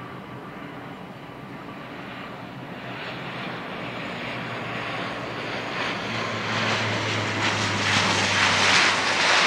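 Jet airliner engines running, a steady rushing noise that grows steadily louder and is loudest near the end.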